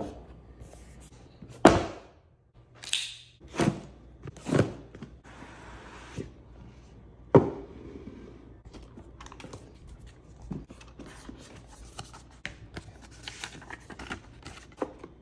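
Hands handling a tablet and its box: about five sharp knocks and thunks in the first eight seconds, a short stretch of rustling about six seconds in, then lighter clicks and taps as paper inserts and box parts are moved.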